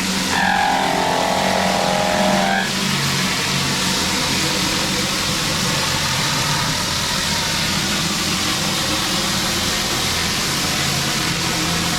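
Pressure-washing rig's gas engine running steadily under the hiss of high-pressure water spray. A brief higher whine sounds over it in the first two or three seconds.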